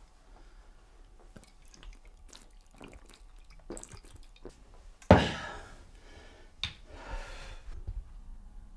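A man drinking from a glass bottle: faint gulps and small liquid clicks. About five seconds in comes a sudden loud knock that rings off briefly, followed by a single click and a short breathy rush.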